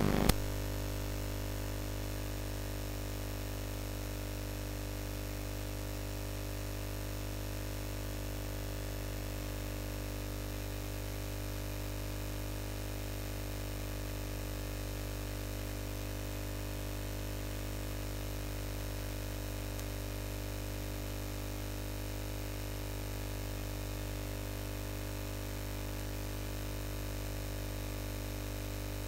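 Steady electrical hum and static hiss with several fixed buzzing tones, unchanging throughout. Just after the start a louder sound cuts off with a click.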